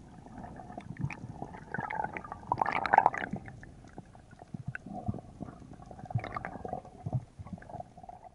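Underwater sound from a spearfisherman's camera: water gurgling with scattered clicks and knocks from the speargun shaft and a speared wrasse being handled. The loudest cluster of clicks comes about three seconds in, with another burst near seven seconds.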